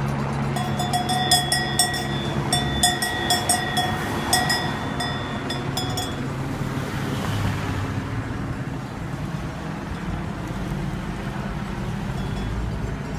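A cowbell rung in quick, irregular strikes for the first few seconds. Then cars drive slowly past, with a steady low engine and tyre rumble.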